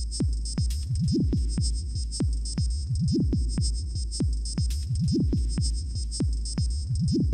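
Electronic outro music with a deep, pulsing bass and a fast, steady beat.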